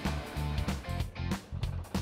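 Background music with a steady drum beat over a bass line.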